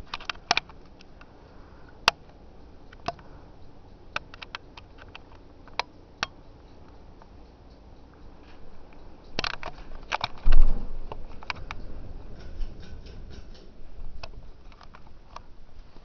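Hunter Low Profile II ceiling fan running with a faint steady hum, under irregular sharp clicks and ticks. A loud low thump comes about ten and a half seconds in, followed by a few seconds of rougher rustling.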